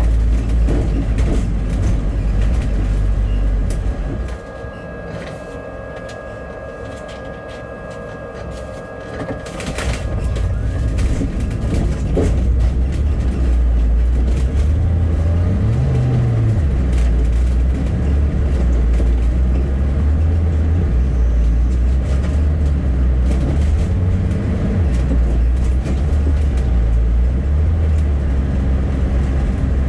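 Bus engine and road rumble heard from inside a moving bus. About 4 s in it drops to a quieter idle for about five seconds while a steady high tone sounds. The rumble then builds again as the bus pulls away.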